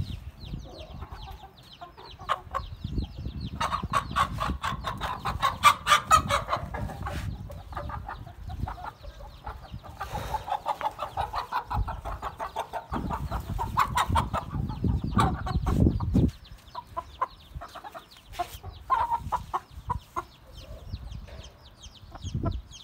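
Aseel chickens clucking in quick runs of short calls, busiest in the first half. A low rumble on the microphone for a few seconds a little past the middle.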